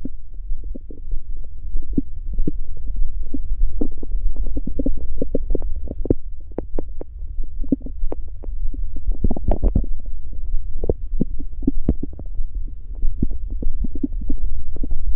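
Human stomach growling and gurgling: a steady low rumble under a dense run of quick gurgles and pops, thickest about nine seconds in.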